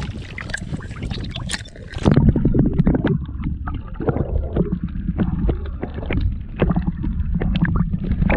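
Rumbling wind and water noise aboard a small boat, with irregular knocks and slaps against the hull; the rumble gets louder about two seconds in.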